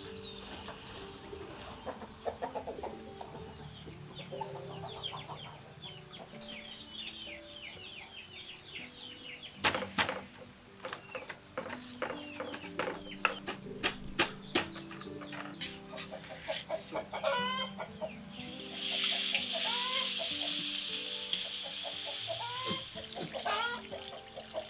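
Chickens clucking nearby. Over them come quick knocks of a stone pestle grinding shallots and garlic in a stone mortar, then a few seconds of hissing as spice paste fries in a wok near the end.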